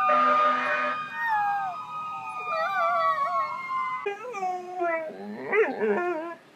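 Beagle puppy howling with its head raised, a long wavering howl that slowly falls in pitch. About four seconds in, it gives way to a second dog making short, wavering whining calls that swoop up and down.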